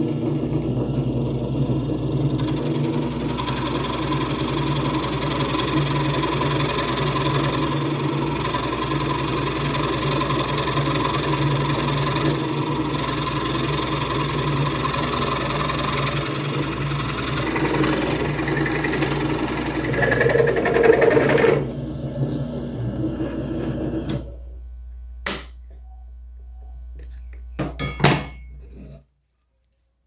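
Homemade bench drill press, driven by a washing-machine motor through a belt, running steadily while an 18 mm spade bit bores into a thick block of wood. The cutting noise grows louder for a few seconds near the end of the drilling, then the motor winds down and stops. A few sharp knocks follow.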